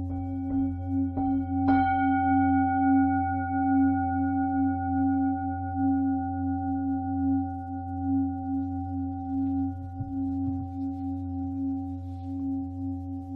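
Lingam singing bowl ringing with a long, steady sustain and a slow pulsing beat in its lower tone. It is struck lightly a few times in the first two seconds, each strike adding higher ringing overtones that fade away over several seconds.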